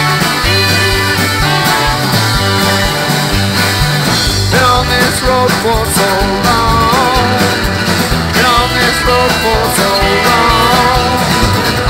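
Country-rock band playing live off the floor: acoustic guitar strumming over bass and drums in a steady beat, with a lead melody line coming in about four and a half seconds in.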